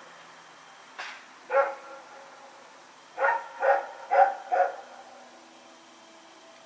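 Belgian Malinois barking at night: two barks near the start, then a quick run of four barks about three seconds in, roughly two a second, before it falls quiet.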